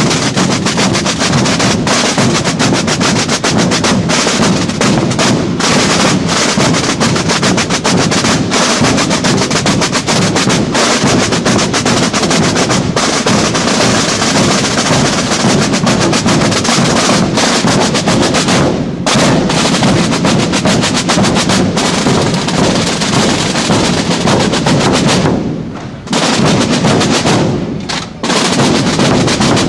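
Holy Week drum corps of snare drums and large rope-tensioned bass drums playing together, a loud, dense, continuous beat. The drumming breaks off briefly twice near the end.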